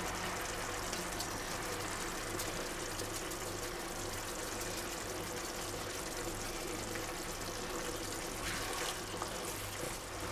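Tomato, bean and corn sauce simmering in a frying pan on the hob, a steady soft bubbling and sizzling. Near the end a spatula begins stirring through it.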